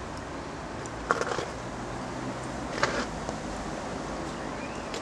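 Steady background noise with two brief knocks, one about a second in and one near three seconds in.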